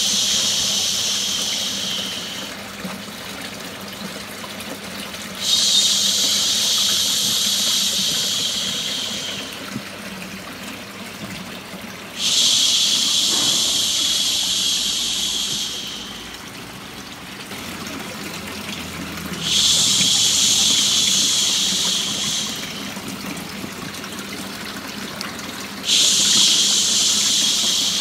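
Long drawn-out "shhh" hushes for soothing a baby, each lasting three to four seconds and repeating about every seven seconds, over a steady running-water sound. One hush is already under way and ends about two seconds in, four more follow, and the last is still going at the end.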